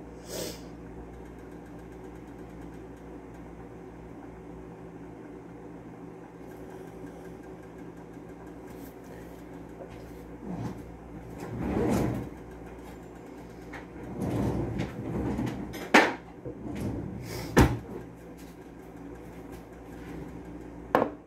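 Kitchen handling noises while a plastic spatula is fetched: a swell of movement noise about halfway through, then rattling and two sharp knocks of cabinetry being shut, over a steady low hum.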